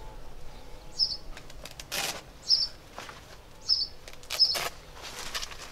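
A small bird chirping again and again, one short high call roughly every second, over the rustle of a fabric carrying bag being handled. The rustling comes in short bursts, the loudest about two seconds in and again near the three-quarter mark.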